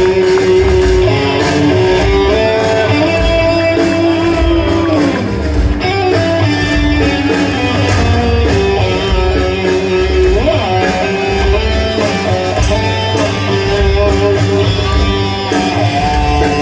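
Live rock band playing an instrumental passage led by electric guitar, with bending guitar notes over bass and a steady beat.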